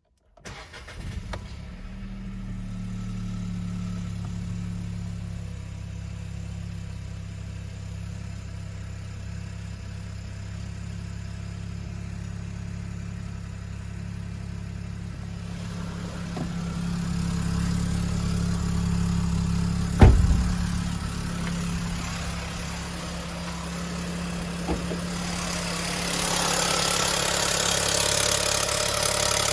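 VW Golf 7's 1.0 TSI three-cylinder petrol engine starting from cold and settling into a steady idle, with the rattle it makes on cold start. A single sharp thump about two-thirds of the way through is the loudest sound, and a hiss builds near the end.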